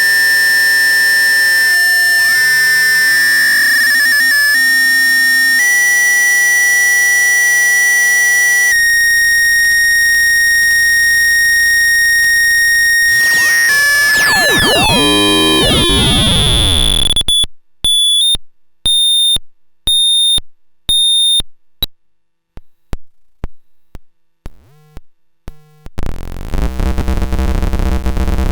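Eurorack square-wave oscillator noise module producing harsh, buzzing electronic tones. The tone jumps in pitch every few seconds, sweeps and warbles about halfway through, then breaks into rapid stuttering pulses before returning to a dense buzz near the end.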